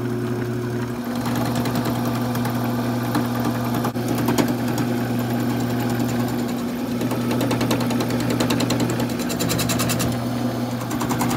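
Wood lathe motor running with a steady hum while a turning gouge cuts into a spinning apple wood blank. The gouge is knocking off the high spots of the bowed, out-of-round blank, with a rough cutting noise and fine rapid ticking that grows stronger near the end.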